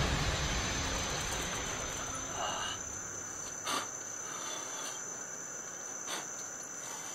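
Crickets trilling steadily in the night, one thin unbroken high-pitched tone, as the last of the music fades away at the start. A couple of faint clicks sound about halfway through and again near the end.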